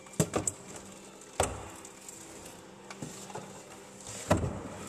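Pressurised fuel spraying from a just-disconnected fuel line at the fuel filter of a 2004 Ford F-150, a faint hiss under a low steady hum. Several sharp clicks and knocks stand out: a quick cluster right at the start, single ones about one and a half and three seconds in, and another near the end.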